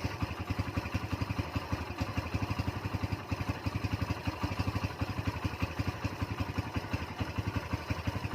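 Kawasaki Barako 175's single-cylinder four-stroke engine idling with a steady, even beat. The loud rocker-arm tick is gone now that the valve clearances are freshly adjusted.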